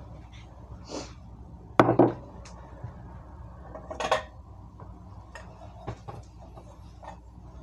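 Kitchenware knocking and clinking on a tiled countertop, a glass sauce jar among it being set down: a few sharp clatters, the loudest about two seconds in and another about four seconds in.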